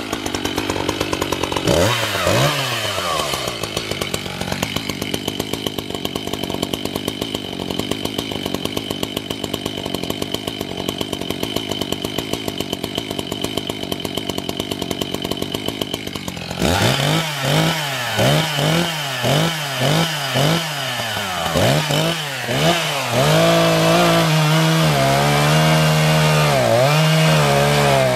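Echo CS-590 Timber Wolf two-stroke chainsaw, freshly cold-started: it is blipped a couple of times, then idles steadily for a long stretch. About two-thirds in it is revved up and down in a string of quick throttle blips, then held at high revs near the end as the chain cuts into a white oak log.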